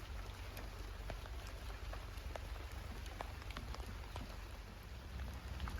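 Rain falling steadily, with many separate drops ticking on hard surfaces over a constant hiss, and a low rumble underneath.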